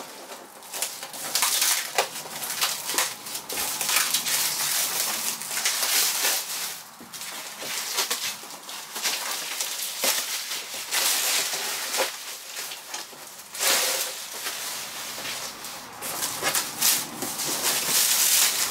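Clear plastic stretch wrap crinkling and rustling as it is pulled and peeled off a large cardboard box, with irregular crackles and short sharp clicks.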